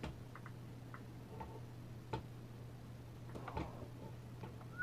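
Faint, scattered light clicks and ticks at irregular intervals, over a steady low hum.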